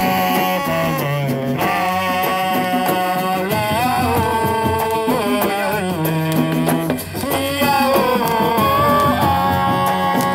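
Music with a singing voice that bends and wavers over a steady bass line and drums.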